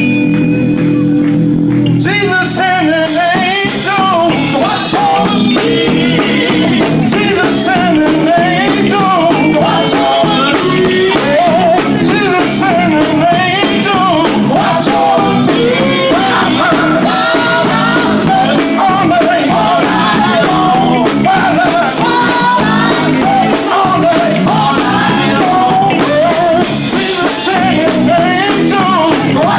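Live gospel group singing with a band of drums and guitar. Held chords sound for the first couple of seconds, then the drums and voices come in and the song runs on at full volume.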